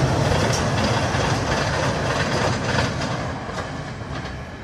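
ALCO diesel locomotive hauling three empty open wagons, passing and moving away: engine rumble with the wheels clicking over the rail joints now and then, growing steadily fainter.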